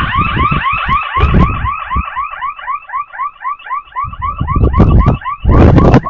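Security intrusion alarm siren set off by opening the door of an armed generator enclosure: a loud warbling tone of rapid repeating sweeps, about five a second, that starts abruptly. Bursts of low rumbling noise sound under it, loudest near the end.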